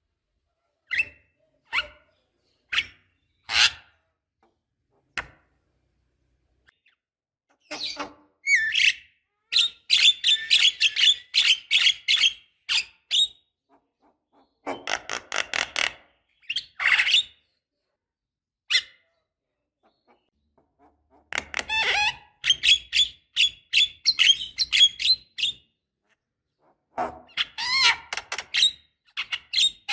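Javan myna (jalak kebo) calling: a few scattered single clicks and chirps, then several bursts of fast, harsh chattering notes, each lasting a second or a few seconds, with pauses in between.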